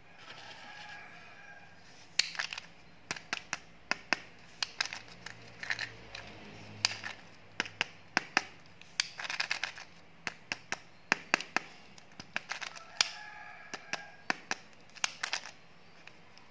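Hard plastic candy eggs and toy candy containers clicking and clacking against each other and against fingertips as hands pick through a heap and handle one egg. It is a string of sharp clicks, two to four a second, with short stretches of plastic wrapper rustling between them.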